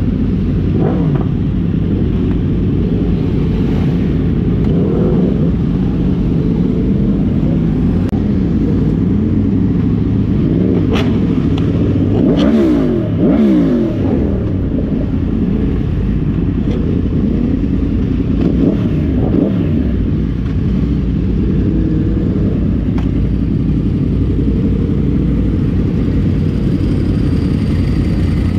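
Several sport motorcycles, mostly Yamahas, running and revving together as a group, heard from one of the bikes. Their engine notes rise and fall over one another, busiest about twelve to fourteen seconds in.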